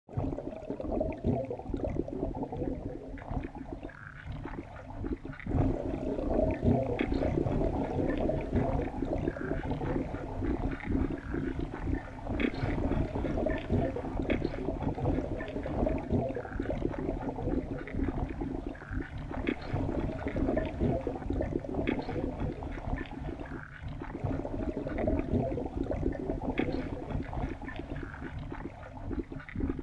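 Muffled underwater rumble and sloshing picked up by a camera in a waterproof housing, with frequent faint clicks running through it.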